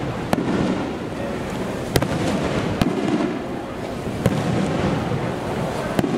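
Aerial fireworks shells bursting overhead: about five sharp bangs at uneven intervals over steady background noise.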